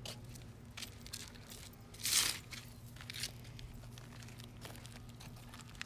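Flip-flop footsteps crunching and scuffing on a gravelly dirt path, a few scattered steps with one louder scrape about two seconds in.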